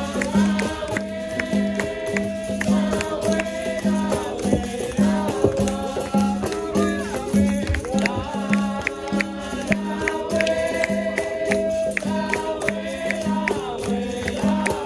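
Capoeira roda music: group singing over berimbau, shaken rattles and hand drum, with a steady low beat about two to three times a second.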